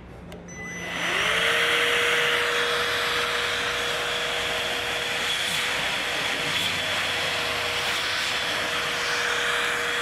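Bosch GAS 18V-1 cordless 18 V handheld vacuum cleaner switched on about half a second in. Its motor whine rises and settles within a second, then it runs steadily with a rush of air.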